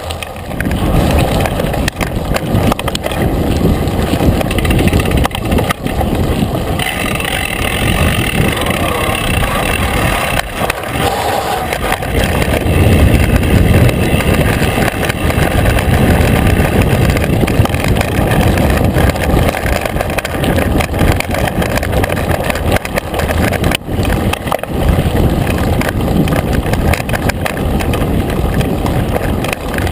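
Mountain bike riding down dry dirt singletrack, heard from a camera mounted on the bike: wind rushing over the microphone and tyres rolling on dirt and gravel, with frequent knocks and rattles from the bike over bumps.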